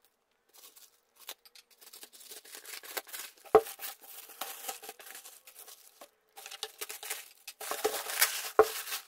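Grey plastic mailer bag being torn open and crinkled by hand, in irregular rustling spurts that grow denser near the end. A sharp knock comes about three and a half seconds in, and a smaller one near the end.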